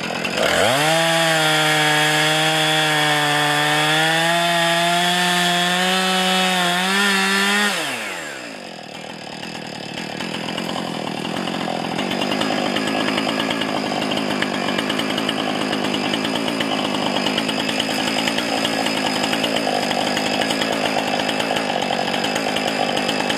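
Chainsaw cutting through a maple log at full throttle, a high steady engine pitch for about eight seconds. Then the pitch falls away and the saw keeps running slower and rougher, growing louder again, to the end.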